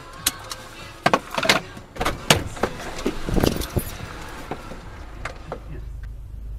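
Car noise with a flurry of sharp clicks and knocks over the first few seconds, then a steady low rumble.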